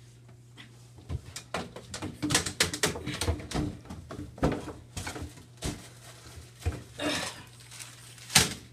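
Plastic bottles and cleaning supplies knocking and clattering as they are rummaged through in a cabinet under a bathroom sink, a quick irregular run of knocks, over a steady low hum.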